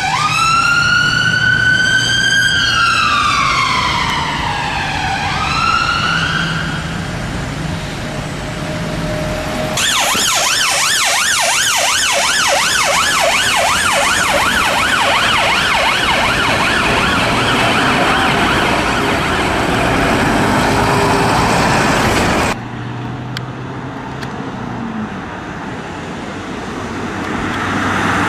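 Fiat Ducato ambulance sirens. First a slow wail rising and falling, then after a cut a rapid yelp over loud rushing noise. That ends abruptly about two-thirds of the way through, leaving quieter traffic rumble until a fresh wail starts right at the end.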